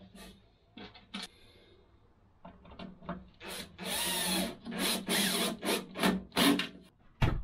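Cordless drill-driver run in several short bursts into the boards of a pine box, its motor whine rising and falling with each burst. The first couple of seconds are quieter, with a few clicks of handling.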